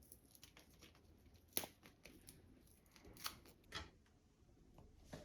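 Faint rustling and snipping as double-sided tape is cut and handled, with a few sharper clicks, the loudest about one and a half seconds in.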